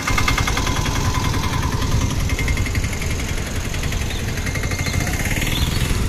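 Piaggio auto-rickshaw engine running steadily close by, a fast, even chugging.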